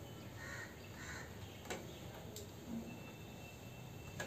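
A bird calls twice in the first second and a half. Faint clicks follow as nuts and screws are handled inside a computer case.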